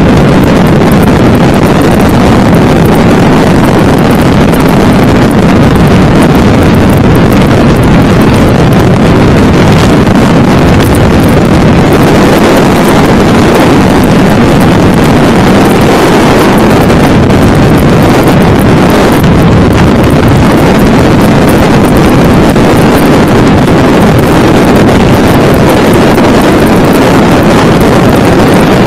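Strong wind buffeting the microphone under a tornado's rotating cloud: a loud, steady rush without pause.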